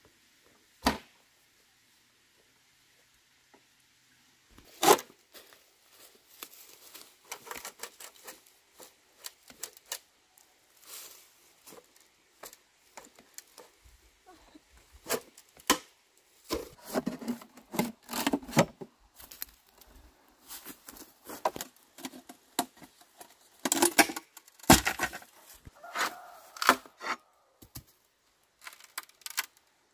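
Irregular handling noises: sharp clicks and knocks with rustling or tearing between them. There is a loud knock about a second in and another about five seconds in, and the sounds come thickest in the second half.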